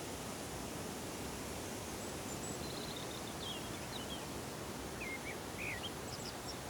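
Forest ambience: a steady, even rustling hiss with a few small birds chirping and trilling briefly in the middle, short high calls, some rising and falling.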